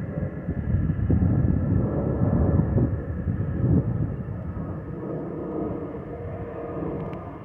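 Airbus A319-114 airliner passing overhead: a low jet rumble, loudest about one to four seconds in and then fading, with a steady whistle above it from the fuel over-pressure protector (FOPP) vents under the wings, the whistle typical of Airbus A320-family jets.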